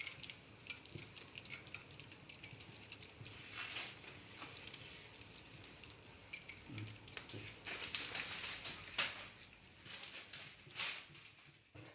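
Chicken frying in a large wok, with a steady sizzle that swells louder several times, around 4 seconds in and again from about 8 to 11 seconds in.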